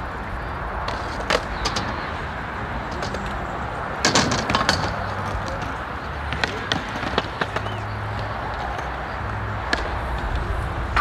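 Open-air skatepark sound: a steady low rumble with scattered sharp clacks and knocks of wheels and boards on concrete ramps. The loudest cluster comes about four seconds in.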